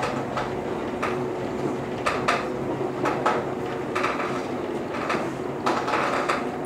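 JR 115-series electric train running, heard from on board: a steady hum over continuous track noise, with metallic clacks as the wheels cross rail joints, about a second in, twice around two seconds, around three seconds, and a cluster near the end.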